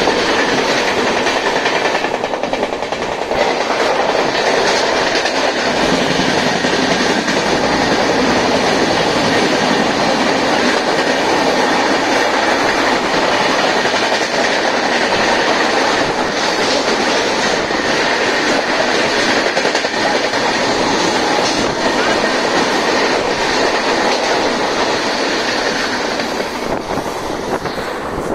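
Electric multiple-unit local train running, heard from inside a general passenger coach: a steady, loud rattle and rumble of the moving train, easing a little near the end.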